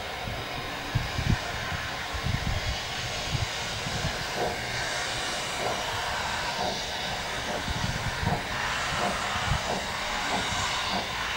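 Distant narrow-gauge steam locomotive getting under way, its exhaust beats starting about four seconds in and coming slowly and unevenly, with a steam hiss. Wind buffets the microphone throughout.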